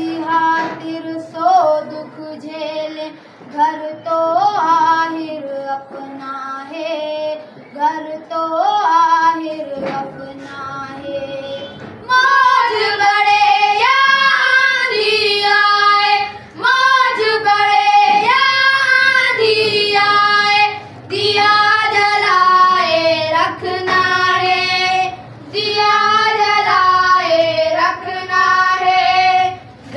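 Boys singing a Pakistani patriotic song together, softer at first, then louder and fuller a little before halfway.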